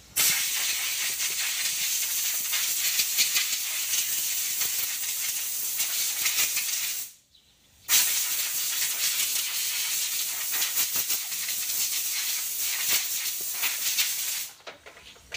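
Compressed air blasting from an air blow gun through a pleated car cabin filter to blow the dust out of it: a loud, steady hiss that stops for a moment about halfway through, starts again and cuts off near the end.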